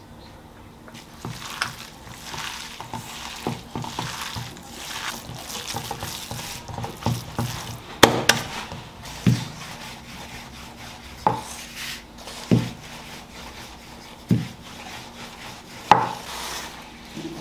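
Hands mixing raw minced pork momo filling in a steel bowl: wet squishing and stirring. In the second half come sharp knocks about every one to two seconds.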